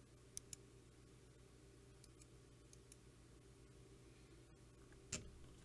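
A few faint, scattered clicks from the buttons of a Logitech G502 Lightspeed computer mouse over near silence, with a slightly louder click near the end.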